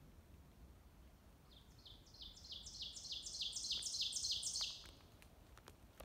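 A songbird sings one song of about ten quickly repeated two-part notes that grow steadily louder, starting about a second and a half in and stopping just before the five-second mark.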